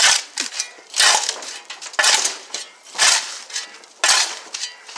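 A shovel blade scraping across asphalt and digging into a pile of loose dirt and rock, in quick strokes about once a second, five in a row.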